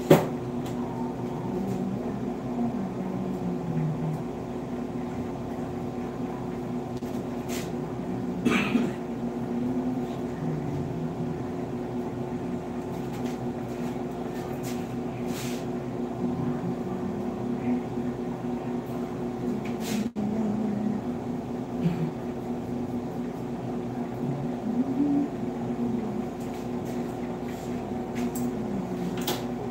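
Electric hair clipper running with a steady buzz, with a few sharp clicks along the way.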